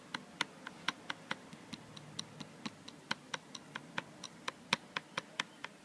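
MacBook Air glass trackpad pressed repeatedly on its left side, giving sharp tinny clicks about four a second. This is a rattle, steel on glass, which the owner takes for a loose trackpad or a gap between the glass and its steel.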